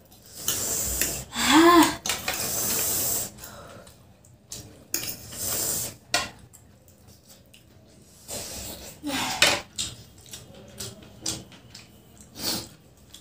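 Eating sounds of two people having noodles: irregular slurping and chewing noises and utensils scraping and tapping on plastic plates, with a couple of short wordless vocal sounds about a second and a half in and again about nine seconds in.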